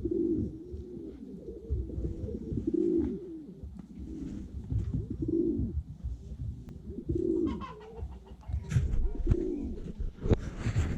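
Domestic pigeons cooing: a series of low, rising-and-falling coos, one every couple of seconds, with a short rustling burst near the end.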